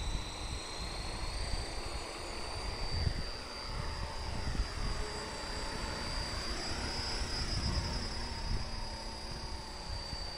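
WLtoys V913 radio-controlled helicopter's electric motor and rotor whining at a high pitch, rising slightly as it spools up on the ground and then holding steady as it lifts off and flies. About halfway through, the pitch bends up and down as the helicopter moves about.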